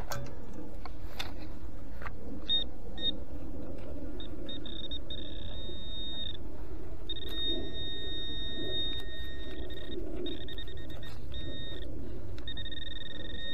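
Metal detector signalling a buried metal target: high electronic tones that switch on and off in stretches of a second or two, sometimes flickering rapidly, over a low steady rumble.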